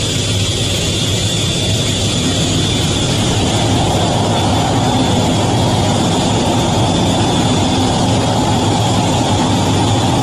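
Fighter jet engines running, heard from inside the cockpit: a steady high whine over a low rumble, growing slightly louder about three seconds in.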